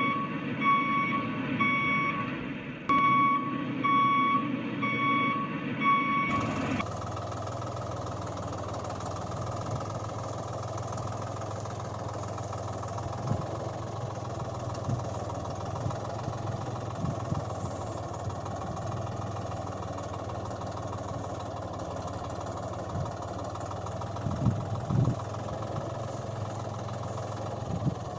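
A vehicle reversing alarm beeping over and over for about the first six seconds. It stops abruptly and gives way to a steady vehicle engine running at idle.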